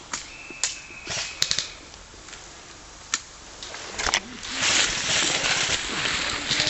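Irregular sharp clicks and snaps, with a thin steady high tone lasting about a second near the start; from about four and a half seconds in, a louder continuous rustling.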